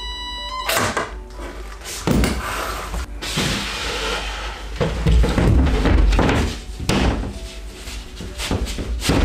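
Background music under a series of knocks and thuds, with a short hiss about three to five seconds in.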